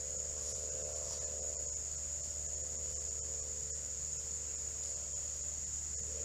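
Steady outdoor insect chorus, a continuous high-pitched trilling, over a faint steady low hum.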